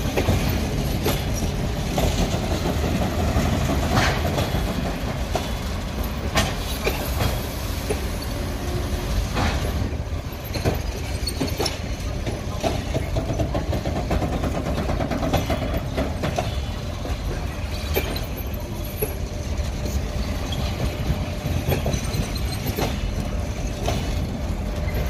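Passenger coaches of an arriving train rolling past, their wheels running with a steady low rumble and clicking irregularly over the rail joints.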